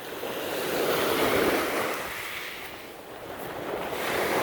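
Lake Erie waves breaking and washing up a rocky shore: two swells of surf about three seconds apart, each rising and falling away.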